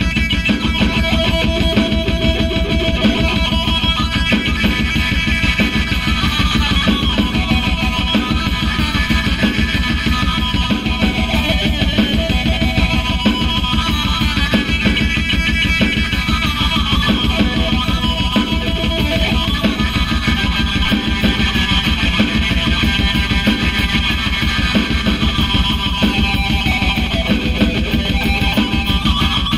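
Electric guitar playing a continuous heavy-metal part, with fast, densely picked notes over a heavy low end.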